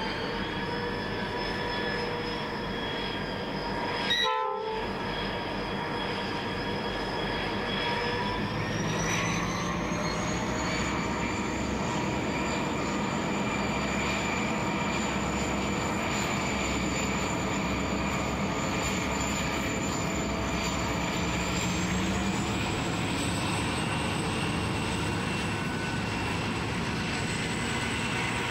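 Three diesel-electric freight locomotives, an 81 class and two BL class with EMD two-stroke engines, working under load as they pull a long container train away from a standstill. The engine note steps up in pitch about eight seconds in and again about 22 seconds in as the throttle is notched up. There is a short blip about four seconds in.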